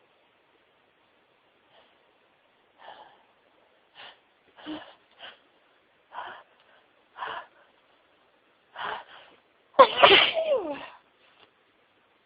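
A woman's sneezing fit: a row of short, spaced catching breaths, then one loud voiced sneeze about ten seconds in.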